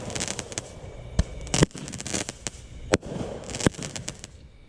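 Consumer firework cake firing: a few sharp, unevenly spaced bangs with crackling in between, near the end of the cake's finale.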